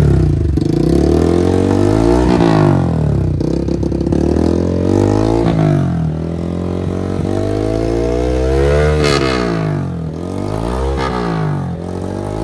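Bajaj Pulsar N160's single-cylinder engine revved several times through a dual pair of free-flowing Akrapovic-style slip-on silencers with the dB killers removed, the pitch climbing and dropping back with each blip. Very loud, with a deep bass.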